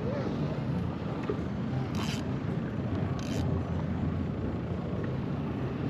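Low, steady rumble of an approaching motorboat's engine over the open water, with two short hisses about two and three seconds in.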